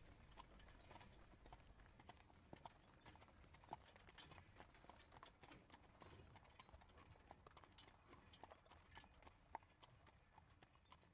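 Faint horse hooves clip-clopping at a walk, a sound effect of a horse being ridden away, fading near the end.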